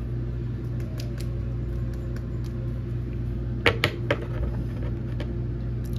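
A steady low electrical hum from a fan or appliance in the room. A little past halfway come three quick plastic clicks as a graded-style card in a rigid top loader is handled and stood up on a wooden desk.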